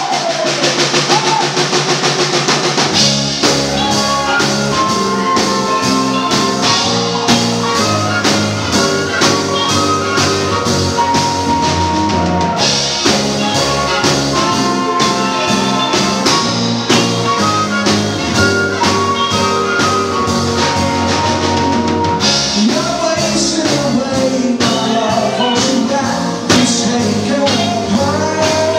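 A live band playing an up-tempo song with drums, electric guitar, keyboard, saxophone and flute, and singing. The full band, low end included, comes in about three seconds in.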